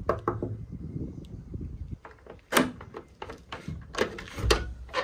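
Metal barrel bolt on a wooden door being handled and slid open, with the door knocking in its frame: a series of clicks and knocks, the sharpest about two and a half seconds in and again near the end.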